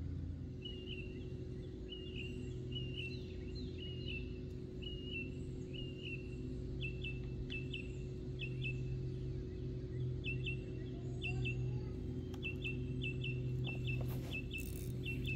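A bird calling over and over in short, high chirps, at first singly about once a second and then in quick pairs, over a steady low hum. A brief rustle of handling comes near the end.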